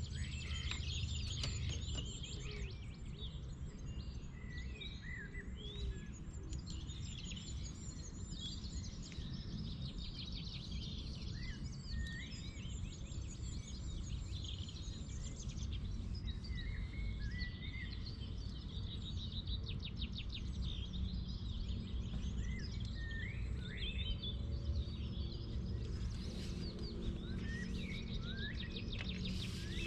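Mixed birdsong: several birds singing and calling at once, with a steady run of short chirps, whistles and quick trills, over a steady low rumble.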